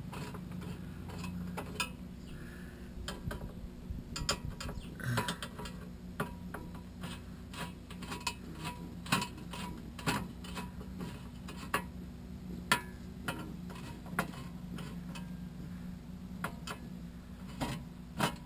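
A long screwdriver backing out the rocker-panel screws on a 1975 Corvette: irregular sharp clicks and scrapes of metal on metal, about once or twice a second, over a steady low hum.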